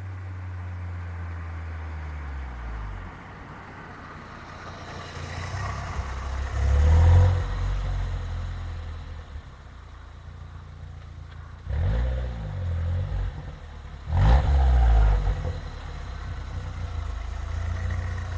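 Opel Vectra C GTS's Z20NET 2.0 turbocharged four-cylinder petrol engine through its stock exhaust, being revved: the revs drop back at the start, climb to a peak about seven seconds in, then two short sharp blips a couple of seconds apart before it settles near idle.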